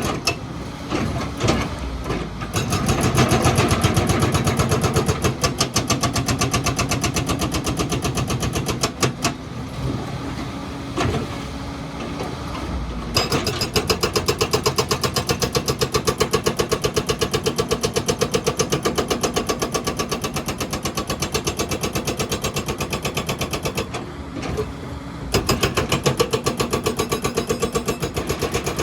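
Excavator's diesel engine running under working load, with a rapid even pulsing throughout. The sound drops away briefly twice, about a third of the way in and again near the end.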